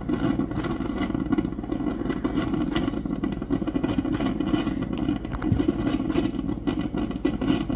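Diesel engine idling with a steady, fast clatter.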